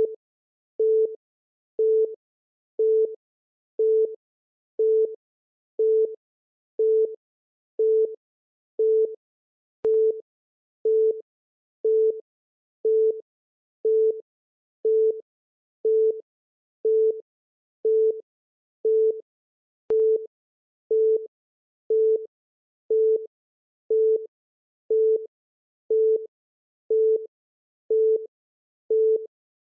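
Electronic countdown-timer beep sounding once a second, each a short steady mid-pitched tone, with a faint click twice along the way.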